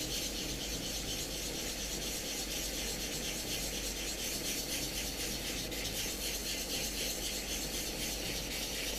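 800-grit wet-and-dry sandpaper rubbed back and forth over a primer-coated PLA 3D print, kept wet, in quick, even strokes. It is flatting off a light black guide coat to level the filler primer.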